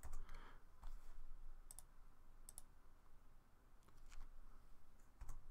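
A few faint, sharp clicks at a computer, spread out over a few seconds, the sound of mouse or keyboard input while working in software. Low steady room hiss underneath.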